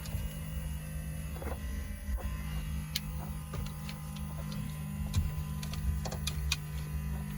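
Scattered light clicks and clinks from a car battery terminal being hooked up by hand, over a steady low electrical hum.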